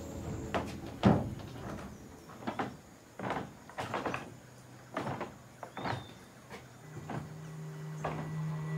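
Footsteps and wooden knocks: an irregular series of thuds, the loudest about a second in.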